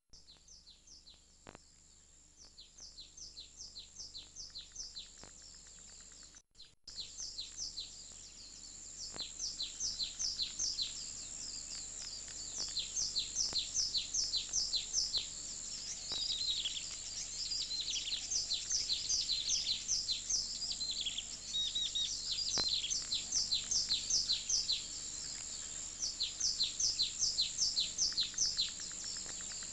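Birds chirping: quick, high descending chirps several times a second over a steady high-pitched whine, growing louder over the first dozen seconds. The sound drops out briefly about six and a half seconds in.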